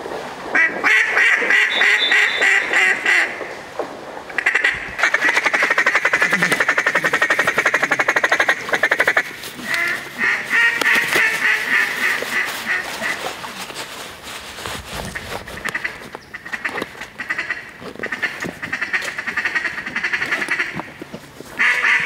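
Mallard duck calls blown in runs of quacks and fast feed chatter, with short pauses between runs; the densest, most rapid chatter comes from about five to nine seconds in.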